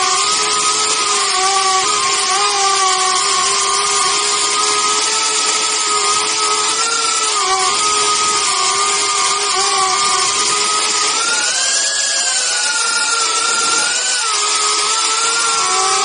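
A ducted iFlight FPV quadcopter's motors and propellers whine steadily, heard close up from the camera on board. The whine climbs in pitch about eleven and a half seconds in and drops back about fourteen seconds in as the throttle changes.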